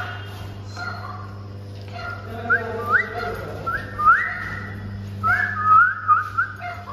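A person whistling a string of short, rising notes at a pet dog, with a quick run of them near the end. Between the whistles a dog whines softly.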